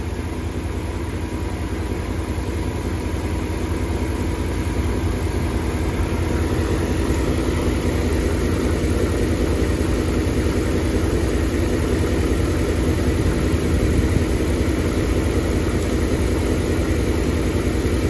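1999 Dodge Ram 1500's 5.2-litre (318) V8 idling steadily, with the EVAP purge solenoid unplugged. The truck has a rough idle that the owner suspects comes from a bad purge solenoid.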